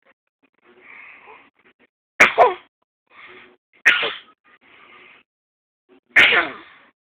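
Six-month-old baby fake coughing: three short, sharp coughs about two seconds apart, with quieter breaths in between. The coughs are put on on purpose, not a sign of illness.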